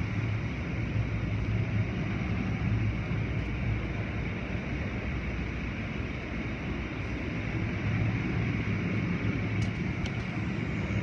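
Automatic tunnel car wash running: water spraying and cloth brushes and curtains churning over a car, over a steady low machinery hum.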